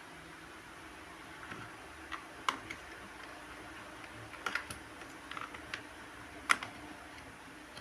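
Plastic toy-kitchen pieces clicking and tapping as they are handled: about a dozen light, irregular clicks, the sharpest one near the end, over a faint steady hiss.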